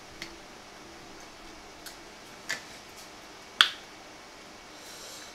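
Eating sounds from a seafood boil: four sharp, short clicks and smacks spread over a few seconds, the loudest about three and a half seconds in.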